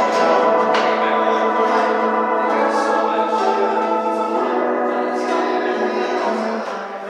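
Live music: sustained instrumental chords held steadily, dipping in level near the end.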